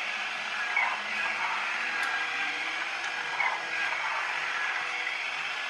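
Small electric motor driving a clear plastic Haynes HM04R model four-cylinder engine, turning its crankshaft, camshaft and rockers: a steady motor whine with plastic gears and valve gear clattering, and a brighter click repeating about every 1.3 seconds. It runs stiffly, which the owner puts down to moulding swarf left on the parts.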